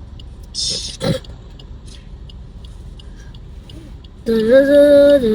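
A child's voice holding a loud, long vocal note that starts about a second before the end and drops in pitch, over the quiet hum of a car cabin.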